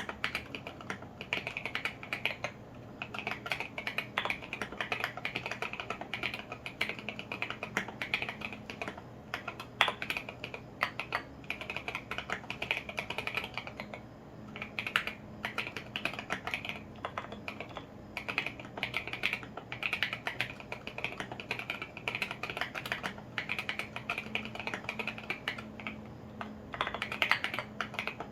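Continuous fast typing on a custom mechanical keyboard with lubed and filmed Alpaca V2 linear switches and SA-profile ABS keycaps in an acrylic Tofu65 case. It makes many key clacks a second, with a brief lull about fourteen seconds in.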